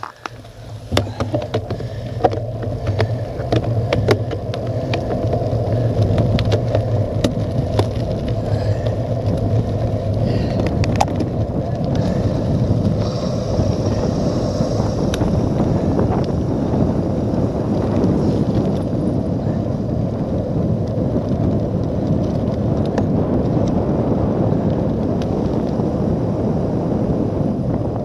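Wind rushing over the microphone and tyre noise of a cyclocross bike rolling on tarmac, building over the first few seconds as the bike gathers speed on a downhill, then holding steady. A few sharp clicks in the first seconds.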